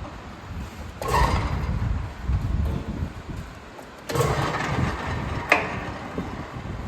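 Metal lathe running in two spells, starting up about a second in and again about four seconds in, with a sharp click a little after five seconds.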